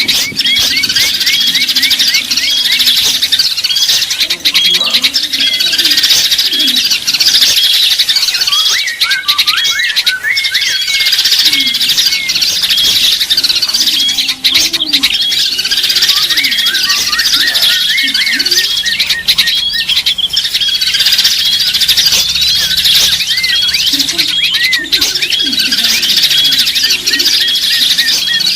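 Many small songbirds chirping and calling at once in a dense, unbroken chorus of quick, high, repeated notes, with a few lower calls underneath: a lure (pikat) recording meant to draw small birds in.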